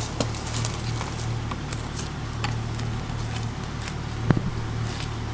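Fillet knife working along a fish's backbone and through its rib bones, giving small clicks and crackles, over a steady low hum. One sharp knock about four seconds in.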